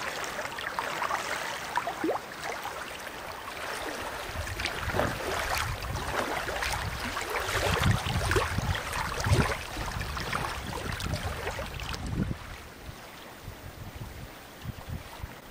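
Small waves lapping and splashing against a pebble lakeshore, with wind rumbling on the microphone in gusts. The sound drops to a quieter lapping about twelve seconds in.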